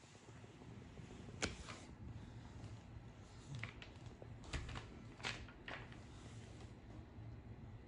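Light taps and knocks of a small child's hands on a sheet of paper laid on a wooden floor, about six in a few seconds, the sharpest about a second and a half in.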